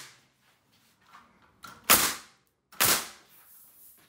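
Pneumatic framing nailer firing twice, about a second apart, driving nails into a wooden jack stud.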